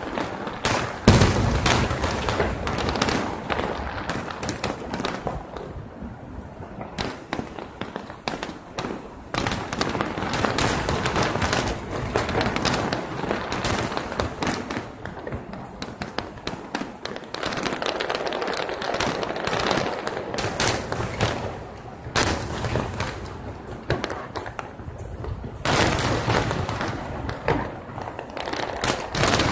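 A large aerial fireworks display, with many shells bursting and crackling in quick, dense succession. The heaviest boom comes about a second in.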